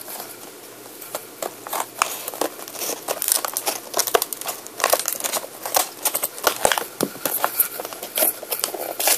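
Plastic packaging of a Shopkins blister pack crinkling and crackling in quick irregular strokes as it is worked open by hand.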